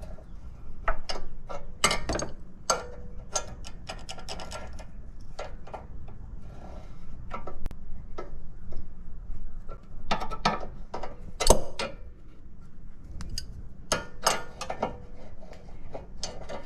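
Irregular metal clicks and clinks of an adjustable wrench being fitted and turned on a castle nut, drawing a new tie rod end's stud up into the steering knuckle, with one sharper knock about eleven seconds in.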